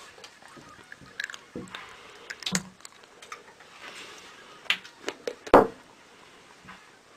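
A few irregular sharp clicks and knocks, the loudest a heavier thump about five and a half seconds in.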